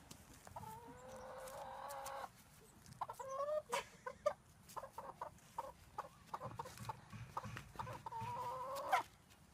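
A hen calling while a small child grabs and carries it: a long drawn-out call about half a second in, a few short clucks, and another long call that rises slightly near the end.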